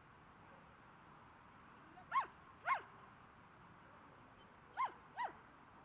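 Dog giving four short, high-pitched yips in two pairs, each call rising and falling in pitch.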